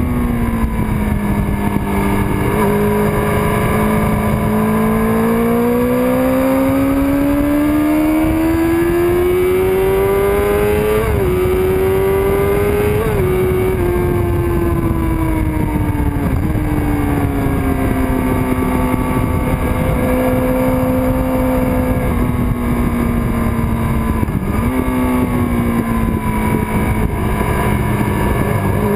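1999 Kawasaki ZX-6R's inline-four engine at speed on track: the revs climb steadily for about ten seconds, break twice in quick gear changes near the middle, then fall away and hold steady, with a short dip and recovery near the end. Wind rushes over the microphone throughout.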